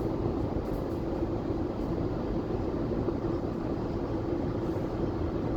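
Freight train passing close by, its wagons rolling with a steady rumble and a steady hum.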